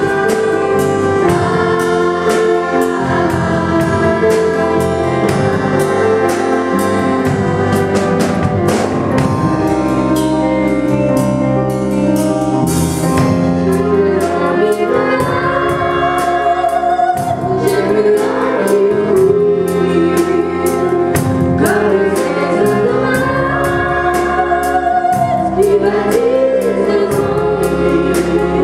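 A woman singing a song into a microphone with vibrato on held notes, over live accompaniment from a piano and a drum kit with cymbal hits.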